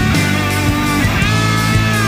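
Background rock music led by a guitar holding long notes that bend in pitch, over a steady low bass line.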